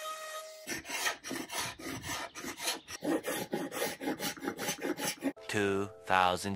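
A random orbital sander runs for a moment and stops. Then a hand paint scraper is pulled in quick repeated strokes, about three a second, rasping paint off a pine drawer frame. Near the end a deep, exaggerated narrator's voice comes in.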